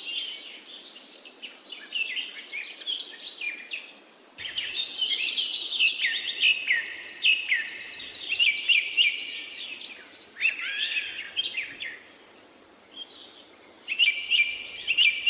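Several small birds chirping and singing in quick, overlapping phrases, with a rapid high trill around the middle. The song thins out briefly about four seconds in and again near the end before picking up.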